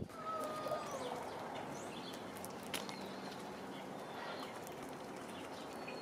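Quiet outdoor ambience with birds: a short falling call just after the start, a few faint high chirps, and a single sharp tap about three seconds in.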